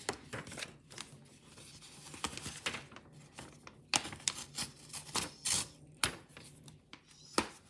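Paper and pencil being handled and shifted on a table: irregular light taps, scrapes and rustles.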